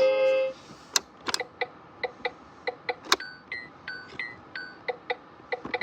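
VTech toy steering wheel's electronic turn-signal ticking, about three ticks a second, after a short musical jingle from the toy ends. A few louder sharp plastic clicks of its buttons or lever come in among the ticks.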